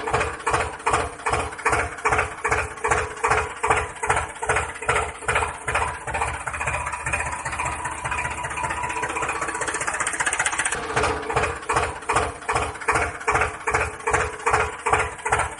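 Tractor engine running with a steady thudding beat, about two to three beats a second, smoothing out for a few seconds in the middle before the beat returns.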